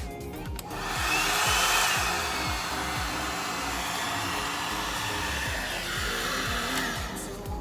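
Ceramic hot air brush (a hair dryer built into a round brush) blowing: a steady airflow hiss that switches on just under a second in and cuts off near the end, used to style long bangs. Background music with a steady beat plays under it.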